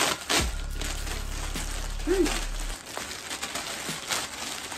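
Clear plastic poly bag crinkling in short, irregular rustles as hands pull it open to get a hoodie out.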